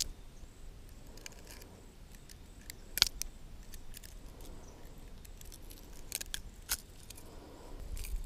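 Sharp metallic clicks of fishing pliers and the treble hooks of a Daiwa Double Clutch diving lure as a hook is worked out of a fish: a few separate clicks, the loudest about three seconds in, with a couple more later on.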